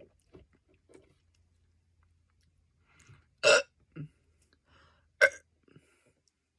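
Two short, loud belches about two seconds apart, the first the louder, with a smaller low one between them, from a man who has just chugged a Coke.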